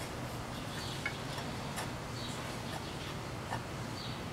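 Faint, scattered light clicks and taps of a hand-cut steel plate being shifted against the engine and frame as it is test-fitted, over a low background hum.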